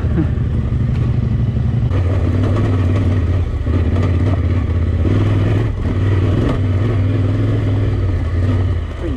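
Adventure motorcycle engine running under throttle while riding off-road, its note dipping briefly three times.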